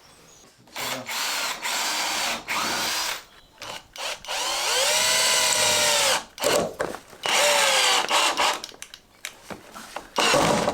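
Battery-powered cordless drill/driver run in several short trigger bursts, its motor whine rising as it spins up and falling as it winds down, the longest burst about two seconds near the middle. The battery is close to running flat.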